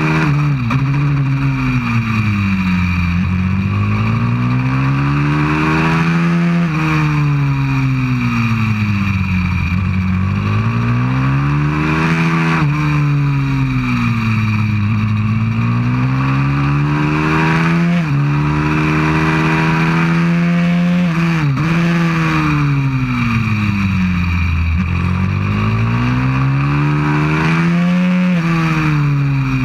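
190cc pit bike's single-cylinder four-stroke engine at full racing pace, its pitch climbing under acceleration and sinking off the throttle into corners again and again, with several sudden short drops in pitch. Wind rushes over the microphone throughout.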